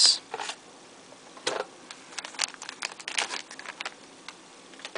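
Clear plastic sleeve crinkling as a phone is slid out of it, in a string of short, irregular crackles, densest about two to three and a half seconds in.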